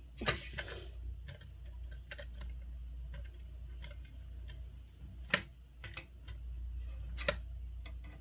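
Irregular light clicks and taps with three sharper knocks, over a steady low hum.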